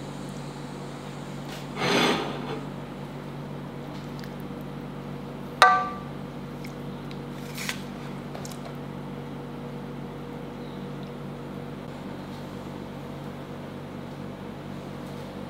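Cookware and utensils being handled: a short scraping clatter about two seconds in, then a sharp clink that rings briefly, and a faint tap a couple of seconds later, over a steady low hum.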